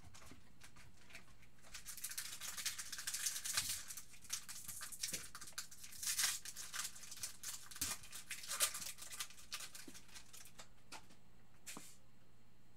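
A trading-card pack wrapper being torn open and crinkled by hand, in quick irregular bursts from about two seconds in to about ten seconds in, with one short rustle near the end.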